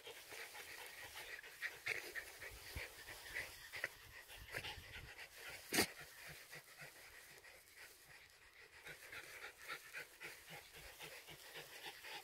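A Japanese Spitz dog panting faintly in quick short breaths, with one sharp knock about halfway through.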